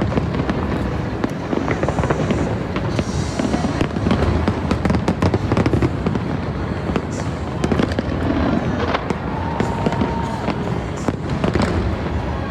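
Fireworks display: a dense, continuous run of bangs and crackles from bursting aerial shells over a constant rumble.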